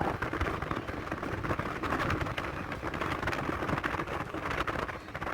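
Car on the move, with steady road and engine noise.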